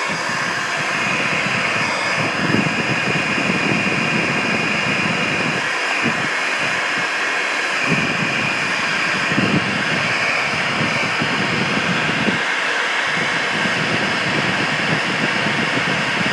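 Hair dryer running steadily on a continuous blast of air, with a faint high whine and a gusty low rumble of air hitting the microphone.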